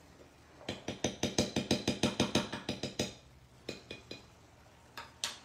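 A spoon knocking rapidly against the metal frying pan holding the tomato sauce, about seven quick clacks a second for two seconds, then a few single knocks.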